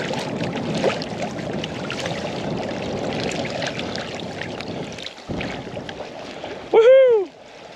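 Shallow saltwater sloshing and splashing around a hunter wading to retrieve a downed duck. About seven seconds in, one short, loud pitched cry rises and falls in pitch.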